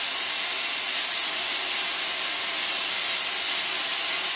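Spark-gap Tesla coil firing, with its static spark gap and the sparks from the breakout point on the top load making a loud, steady, harsh hiss.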